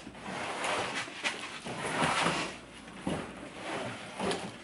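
A heavy cardboard box holding a portable table saw scraping and sliding across a pickup truck bed as it is hauled out, in several uneven pulls, with hard effortful breathing and a few knocks near the end.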